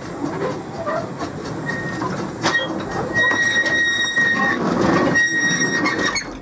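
Small narrow-gauge steam locomotive pulling a coach round a curve, its wheels squealing in high, on-and-off tones over the running of the train. A sharp knock comes about two and a half seconds in.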